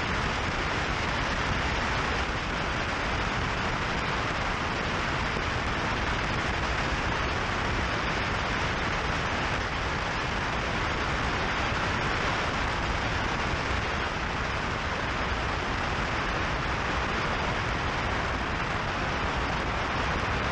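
Motorcycle cruising at a steady speed: a constant rush of wind over the camera microphone mixed with road noise.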